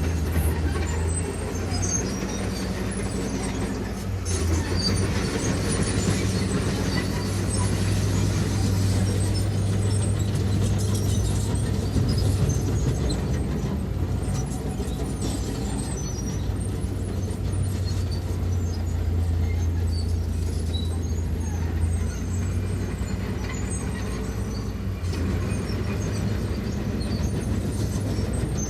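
Diesel engine of heavy earthmoving machinery running steadily under work, with scattered small crackles and clatters of stone over the engine hum.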